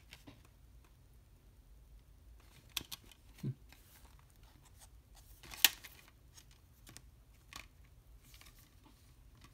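Scattered plastic clicks and taps from a clear Blu-ray keep case being handled as a disc is pressed into it. There is a soft knock about a third of the way in and a sharp click a little past halfway, the loudest sound.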